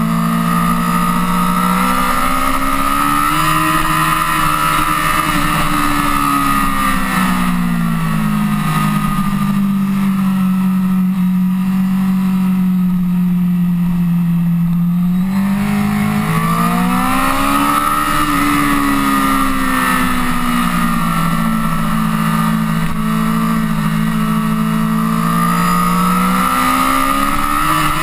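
Honda CBR1000RR sportbike's inline-four engine at speed on a race track, heard from onboard with wind rush over the bike. The engine note climbs and drops several times as the throttle is opened and rolled off through the corners: it rises about three seconds in, falls back, holds a lower steady note through the middle, climbs again past halfway, and rises once more near the end.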